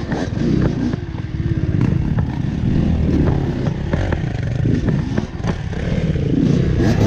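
Dirt bike engine revving up and down over and over at low speed, with clatter and sharp knocks of the bike working over rocks. The revs climb again near the end.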